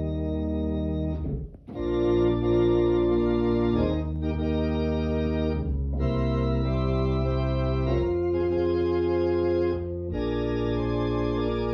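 Organ playing slow held chords that change every couple of seconds, with a brief break about a second and a half in.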